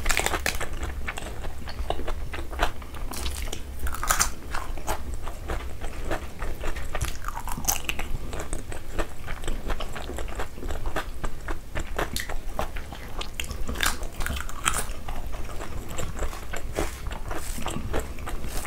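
Close-miked eating sounds: chewing and biting with crunches, many small sharp mouth clicks, as rice and curry are eaten by hand.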